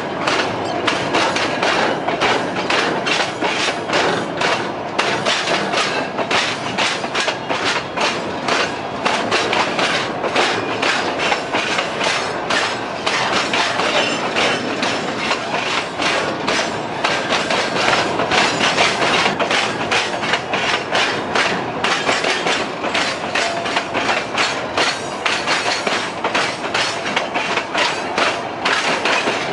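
Freight train wagons rolling past, wheels clacking steadily and irregularly over the rail joints.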